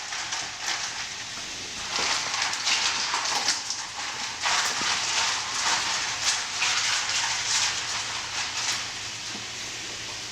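Broccoli and ice cubes being stirred in a bowl of ice water: a steady crackle of splashing water with small clicks, surging louder with each round of mixing.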